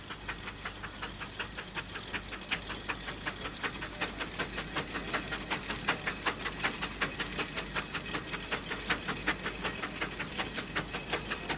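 Steam traction engine on the move, its exhaust chuffing in a quick, even beat of about four a second that grows louder toward the middle.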